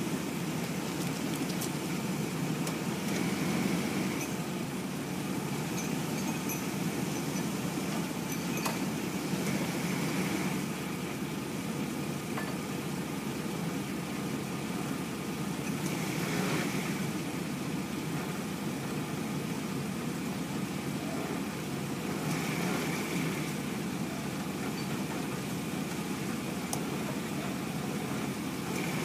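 GMC vehicle's engine idling steadily while it creeps slowly forward at walking pace or less.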